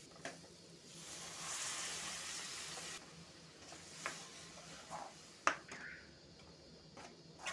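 Water added to hot masala in a metal kadai sizzles and hisses for about two seconds, then a steel spoon stirs and scrapes the wet paste, knocking against the pan a few times, the sharpest knock a little past the middle.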